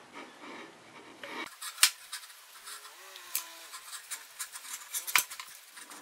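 Caulking gun and silicone tube being worked by hand: light scraping and rubbing with scattered sharp clicks, the loudest about two seconds in and again near the end.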